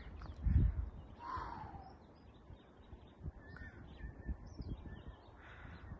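A bird gives one falling, caw-like call just after a second in, with faint small-bird chirps later on. A low thump on the microphone comes just before the call.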